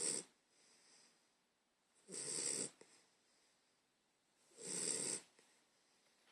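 Snoring in an even rhythm: three loud snores about two and a half seconds apart, with soft breathing between them.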